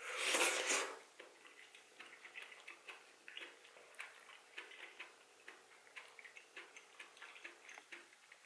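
A short loud slurp as soup-soaked greens are drawn into the mouth, then close-miked wet chewing: soft irregular clicks, about three or four a second.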